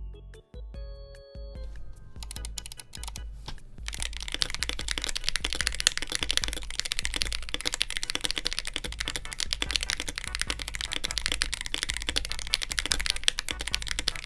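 Fast, continuous typing on a mechanical keyboard fitted with keycaps, a dense clatter of keystrokes that builds up over the first few seconds, over background music with a steady low beat.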